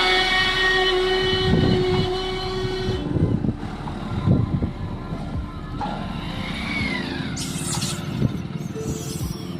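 A steady horn-like chord that cuts off about three seconds in, followed by scattered low thumps and a short falling tone.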